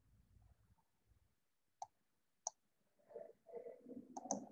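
Mostly near silence, broken by two sharp computer-mouse clicks about two seconds in and half a second apart, then a faint low voice murmuring near the end.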